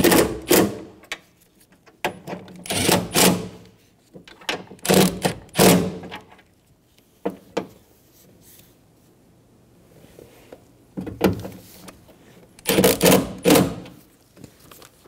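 Cordless Milwaukee driver with a socket extension running in short bursts as it snugs down the bolts in a car door, with a longer pause in the middle.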